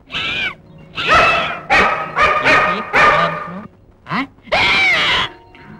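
Dogs barking, a run of about seven short barks in quick succession.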